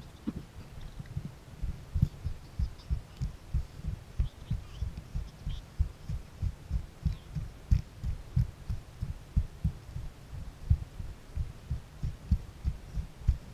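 Low thuds of a hiker's footsteps on a dirt trail, about three a second, carried as jolts through a body-mounted camera.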